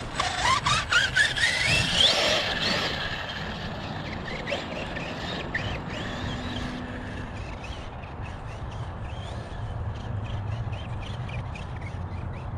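Electric RC truck's brushless motor (a Hobbywing 2250kv) whining sharply up in pitch as it accelerates over dirt in the first couple of seconds. After that comes fainter, uneven motor and tire noise with brief rises and falls in the whine as it drives farther off.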